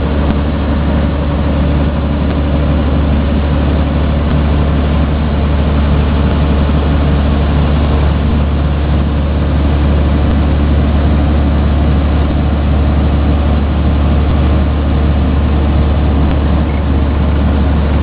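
Claas Dominator combine harvester running in the field, its engine and header making a loud, steady low drone that does not change in pitch.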